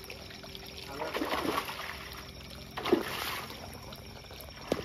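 Hooked freshwater pomfret (bawal) thrashing and splashing at the water's surface in a few bursts as it is played in on a rod, with a short sharp knock near the end.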